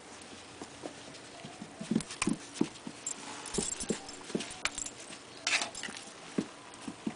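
A miniature dachshund puppy and an Australian shepherd–Labrador mix play-wrestling on a carpeted floor: irregular soft thumps and scuffles of paws and bodies, with two brief rustling bursts about halfway through and again near three-quarters of the way.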